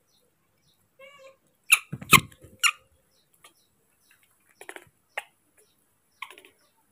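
A baby monkey gives a short, wavering squeak about a second in. It is followed by three sharp knocks, one with a dull thump, which are the loudest sounds. Softer scattered clicks come later.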